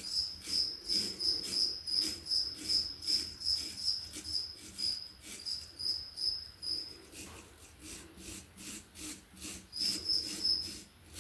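A cricket chirping about three times a second, one high note each time. It pauses for a few seconds in the middle and starts again near the end. Under it, steady rhythmic scraping strokes keep going.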